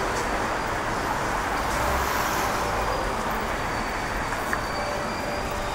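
Steady city traffic and urban background noise, an even wash of sound with no single event standing out.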